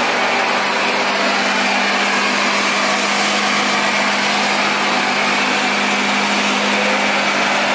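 Chevrolet Silverado pickup doing a burnout: engine held at steady high revs while the rear tyres spin on pavement, making a continuous loud rush of tyre and engine noise.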